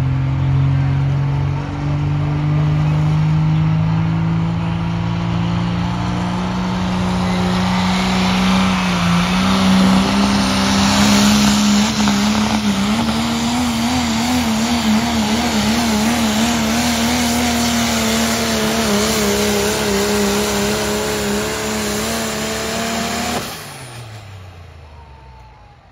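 Diesel pickup truck pulling a weighted sled at full throttle, its engine note climbing slowly through the pull and wobbling in pitch in the later part. About 23 seconds in the throttle is let off and the engine drops away quickly as the truck stops.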